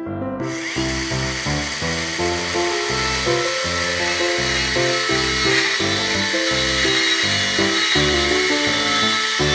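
Miniature chainsaw running and cutting into a small wooden block. It comes in about half a second in as a steady high-pitched whine and hiss, under background music with a steady beat.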